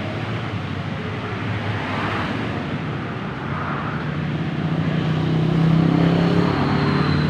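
A motor vehicle engine running close by, a low hum that grows louder over the last few seconds as it nears, over steady traffic noise.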